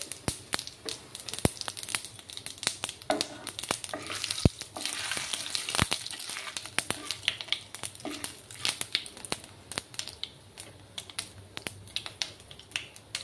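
Panch phoron and whole cumin seeds spluttering in hot mustard oil in a nonstick wok: rapid, irregular pops and crackles throughout. A wooden spatula stirs them around the middle, where the sizzle thickens.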